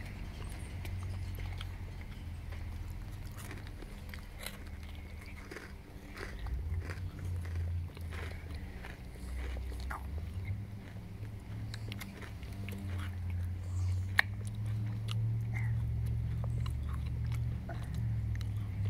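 Chewing and crunching food, with scattered small clicks and taps over a steady low rumble. One sharp click comes about fourteen seconds in.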